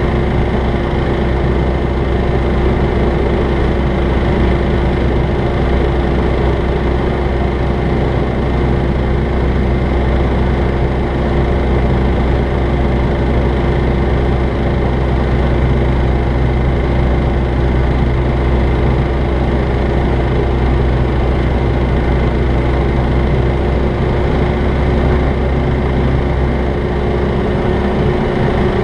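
Jabiru light aircraft's air-cooled engine and propeller droning steadily in flight, heard inside the cabin, with an even steady pitch and no change in power.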